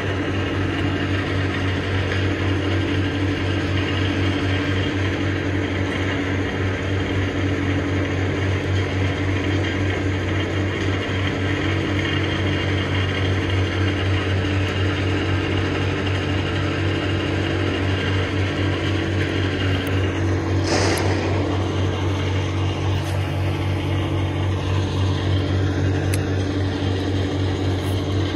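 Steady low machinery hum, unchanging throughout, with one sharp click about three-quarters of the way through.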